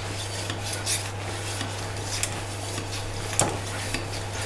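HD35K high-pressure PCP hand pump being worked in strokes, a short metallic click and hiss of air with each stroke, roughly one a second, as it pushes an air cylinder up toward 300 bar. A steady low hum runs underneath.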